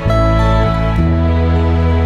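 Background music: slow, soft instrumental with sustained chords that change about every second.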